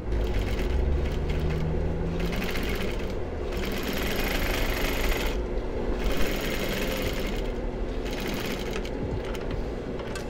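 Gemsy industrial lockstitch sewing machine stitching through layers of denim in about four runs with three short breaks, over a steady low motor hum.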